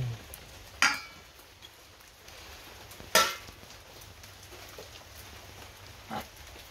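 Metal fork clinking against a ceramic plate: two sharp clinks with brief ringing, about two seconds apart, and a softer knock near the end.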